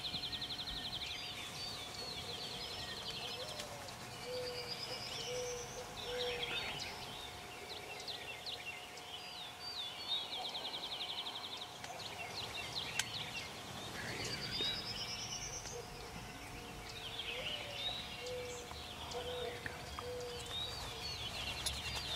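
Songbirds singing: a fast, even trill, then a rising trill and scattered chirps, the same sequence coming round again about halfway through. A faint steady hum runs underneath.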